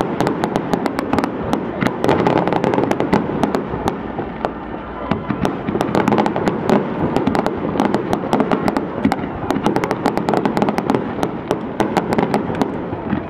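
Fireworks display in full barrage: a dense, unbroken crackle of many rapid sharp cracks and pops over a steady rumble, from fountains and crackling stars going off together.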